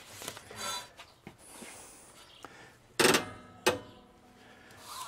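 Two sharp clunks a little over half a second apart, the first ringing briefly, from parts of a 2x72 belt grinder being handled as an abrasive belt is fitted and tensioned. There is no motor sound: the grinder is not yet running.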